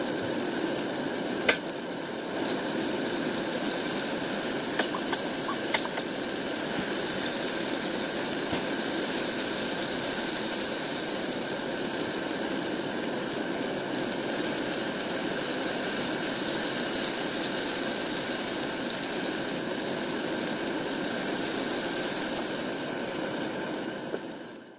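Hot oil sizzling steadily as hand pies deep-fry in a cast-iron pot, with a few sharp clicks of metal tongs against the pot.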